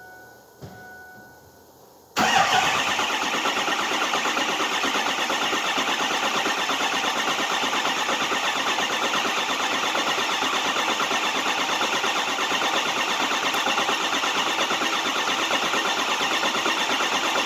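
2005 Ford 6.0 Powerstroke V8 diesel cranking on its starter without firing: a steady, fast churning that starts suddenly about two seconds in and keeps going at an even level. Before it, a faint steady chime tone.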